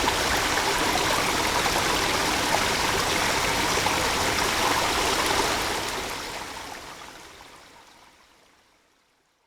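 Steady rushing of a stream, fading out to silence over the last few seconds.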